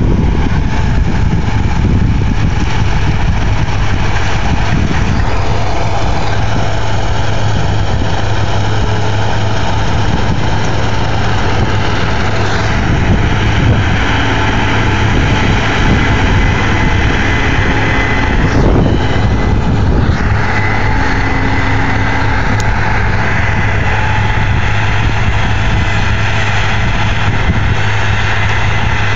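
A heavy vehicle engine running steadily: an unbroken low drone with a constant hum.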